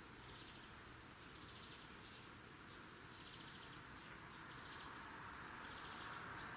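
Faint nature ambience: short buzzy trills repeating irregularly, about one a second, with a run of four quick high chirps a little past halfway, over a steady hiss.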